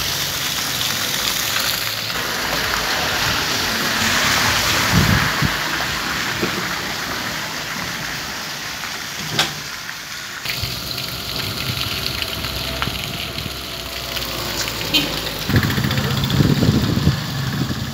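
Water gushing and splashing onto asphalt from the rear spray pipes of a trailer water tanker with a centrifugal pump, over a steady low running hum. The splashing hiss eases about ten seconds in.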